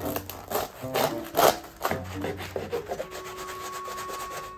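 Kitchen knife sawing back and forth through a toasted bread roll packed with steak, the crust rasping and crackling. A quick run of strokes fills the first two seconds, the loudest about a second and a half in, then it eases off.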